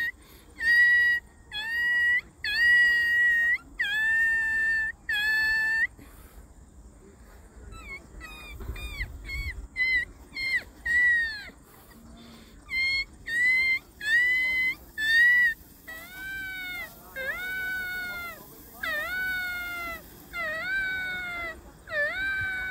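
Puppy whimpering: a long series of short, high-pitched whines, each under a second, with a quicker run of brief cries in the middle and lower, longer cries in the second half.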